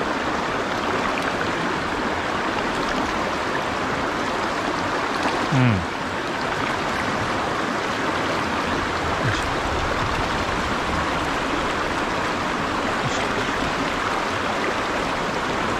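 Fast mountain stream rushing and splashing over rocks close by, a steady water noise throughout. A short, falling low sound stands out briefly about five and a half seconds in.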